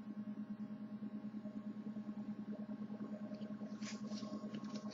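Steady low electrical hum in a quiet room, with a few faint, brief scratchy sounds toward the end.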